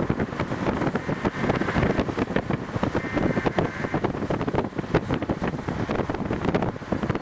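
Gusty wind buffeting the microphone in rough, uneven rumbling bursts.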